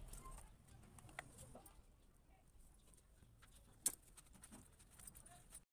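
Near silence with faint, scattered crackles from a wood fire burning in a clay chulha, and one sharp metallic click about four seconds in as metal tongs lift a bajra roti off the iron tawa.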